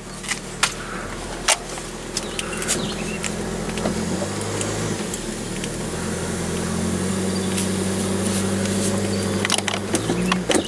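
Vehicle engine running while driving slowly, heard from inside the cab: a steady hum that swells a little through the middle. Scattered sharp clicks and knocks sound over it, most near the start and near the end.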